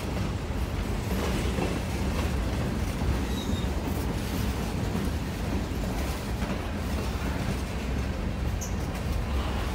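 Freight train cars rolling past, a steady rumble of steel wheels on the rails.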